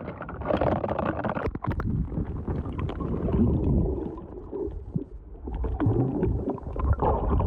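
Water sloshing and gurgling around the camera as it goes under, then a muffled underwater rumble with a few sharp knocks.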